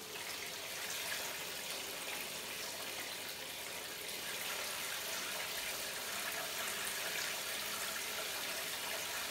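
Bathtub tap running in a steady, unbroken stream, pouring onto a dog's back and into the shallow bathwater.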